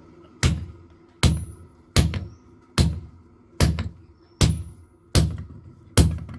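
Blacksmith's hammer striking steel on an anvil in a steady rhythm, about one blow every 0.8 seconds, eight blows in all, each with a short metallic ring.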